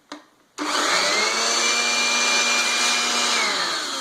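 Electric air blower, rigged to work as a vacuum cleaner, starting after a click: its motor whines up to speed within about a second, runs steadily, then winds down near the end with its pitch falling.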